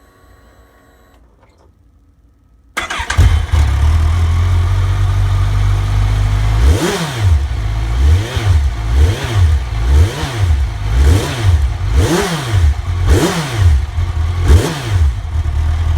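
Kawasaki Z1000 inline-four engine on its stock exhaust starting about three seconds in and idling, then revved in a run of quick throttle blips that rise and fall in pitch before settling back to idle.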